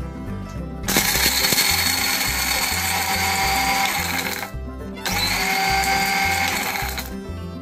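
Small Miyako electric blender with a dry-grinder jar, grinding Oreo biscuits to crumbs. It runs in two bursts, about three and a half seconds then about two seconds, with a short stop between. It gives a steady high whine over the motor noise. Background music with a steady beat plays under it.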